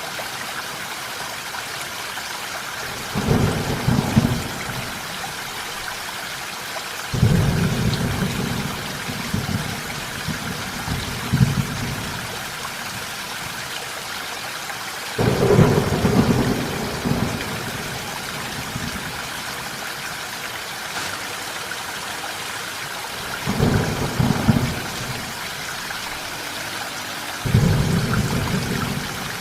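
Steady rainfall with rolls of thunder: five low rumbles break in suddenly over the rain and die away over a couple of seconds each.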